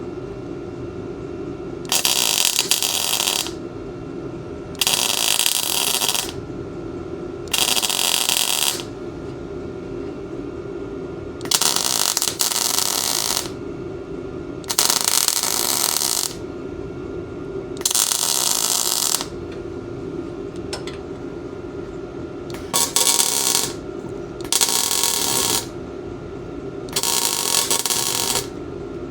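MIG welder stitch welding thin 3/16 tubing: about nine short crackling bursts of arc, each a second or so long, a second or two apart, with a steady hum between them. The welds are kept short so the arc does not burn through the thin tubing.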